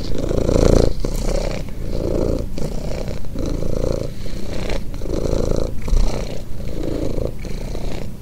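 A cat purring steadily, the purr swelling and dipping in pulses about once every three-quarters of a second.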